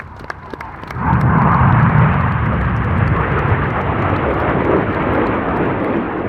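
Loud jet noise from Red Arrows BAE Systems Hawk T1 jets (Rolls-Royce Adour turbofans) flying past. It comes in suddenly about a second in and holds as a steady roar.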